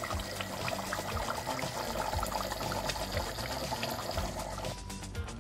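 Thick meat-and-potato curry boiling in an open pressure cooker, a steady bubbling with many small pops, thinning out near the end.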